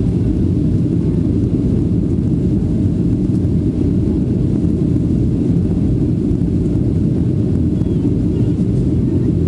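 Steady low rumble of engine and airflow noise inside the cabin of a Boeing 737-400 on approach with flaps extended, its CFM56 turbofans running at approach power.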